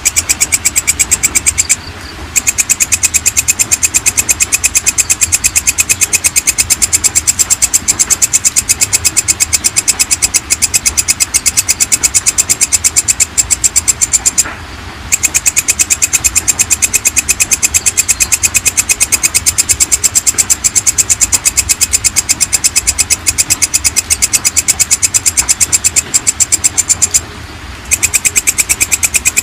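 Walang kecek (belalang kecek) katydid singing: a loud, fast, even train of high-pitched clicking chirps. It stops for about half a second three times, about every twelve seconds.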